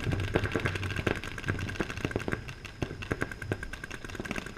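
Paintball markers firing rapid, irregular strings of shots: a quick succession of sharp pops, several a second.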